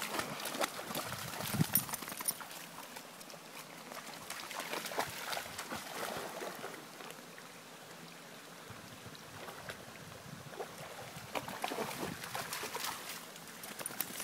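Shallow creek water splashing irregularly as a golden retriever wades through it, over the stream's steady trickle. The splashing is busiest in the first couple of seconds and again near the end.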